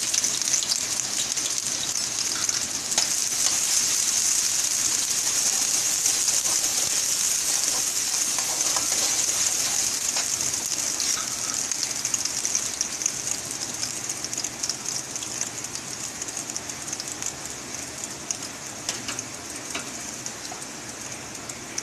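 Chopped onions sizzling in hot oil in a kadhai, loud at first and slowly dying down, with a few light clicks and scrapes from a steel slotted spatula stirring them against the pan.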